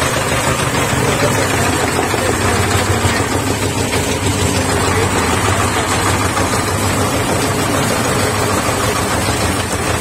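Electric chaff cutter driven by a 3 HP motor running steadily, its blades chopping green fodder as it is hand-fed in and throwing the cut fodder out the side.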